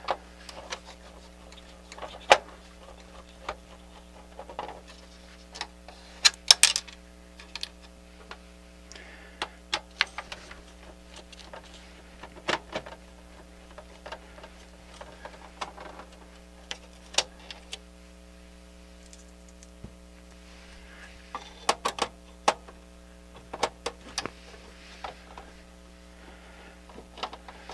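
A screwdriver clicking and tapping against a CD player's metal chassis and drive mechanism as its mounting screws are taken out. The sharp clicks and small knocks come at irregular intervals over a steady low hum.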